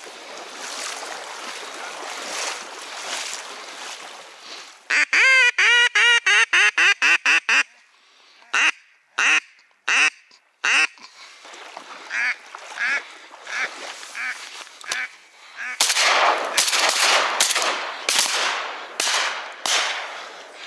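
Duck quacking: a fast, loud run of quacks about five seconds in, then a few single quacks and softer runs of quacks, with louder rougher calls near the end.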